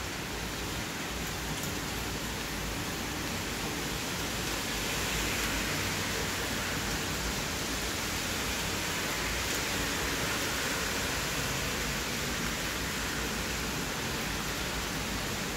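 Steady rainfall, an even hiss of rain that grows a little louder about five seconds in.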